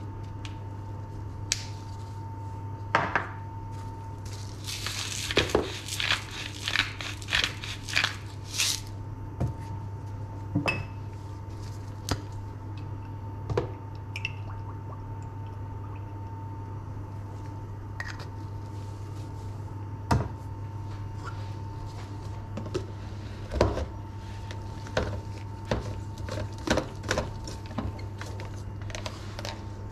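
Glass jar and bottles clinking and knocking on a kitchen countertop while oil is poured into the jar, with a cluster of clatter several seconds in and a lid screwed on near the end. A steady low hum runs underneath.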